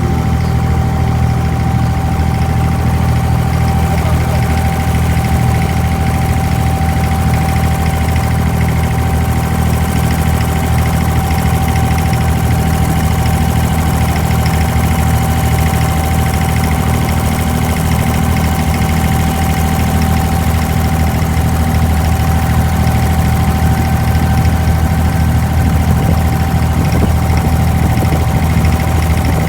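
Diesel engine of an abra, a wooden Dubai Creek water taxi, running steadily with an even low drone and a faint steady higher hum.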